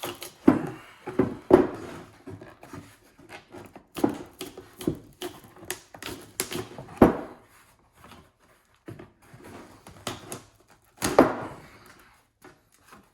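Irregular knocks, clicks and scraping from hands working on a gold cube sluice tray and its mat, with a few louder knocks and short quiet gaps between.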